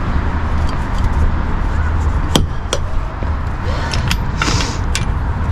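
Hand tools working on a car's suspension: several sharp metallic clinks and knocks, with a short hiss about two-thirds of the way through, over a steady low hum.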